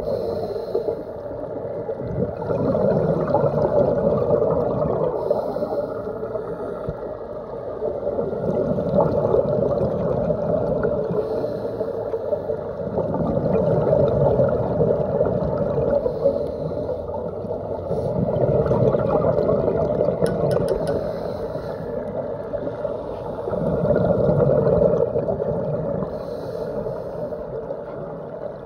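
Muffled underwater rushing and gurgling, picked up through a phone's waterproof dive case, swelling and fading about every five seconds.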